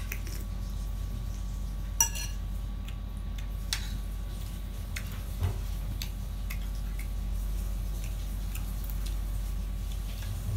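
A metal spoon and ladle clinking against ceramic plates and bowls while eating: a few sharp clinks, the loudest about two seconds in with a short ring, over a steady low hum.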